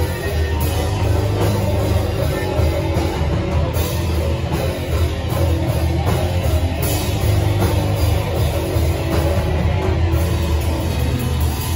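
A heavy metal band playing live: distorted electric guitar, bass and drum kit, loud and dense, with heavy low end.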